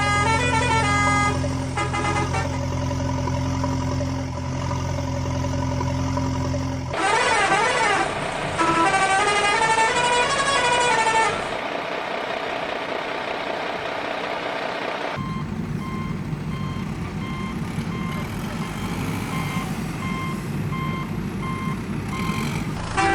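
Cartoon vehicle sound effects: a steady engine hum under a short tune, then a truck engine rumbling while a reversing alarm beeps at a regular pace for the last several seconds.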